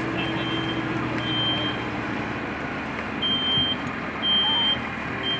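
Smoke alarm inside the burning room sounding its high-pitched alarm beep: half-second beeps in groups of three with a longer pause between groups, the standard pattern that signals smoke or fire, over a steady rushing background.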